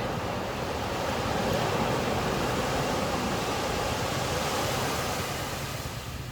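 Ocean waves breaking and washing up the beach: a broad rush of surf that builds about two seconds in and eases off toward the end, with a low rumble of wind on the microphone.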